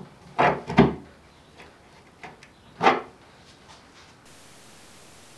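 Wooden knocks and clatter as a metal rod and a wooden saw-frame piece are handled on a wooden workbench: two knocks close together about half a second in, a louder one near three seconds, and a few lighter taps between.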